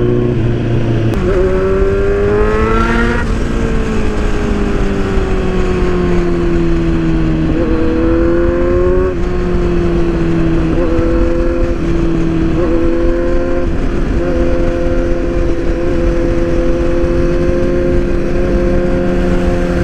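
Kawasaki Z900's inline-four engine heard from the rider's seat, pulling up through the revs in a rising whine between about one and three seconds in, then running at steady cruising revs over wind noise.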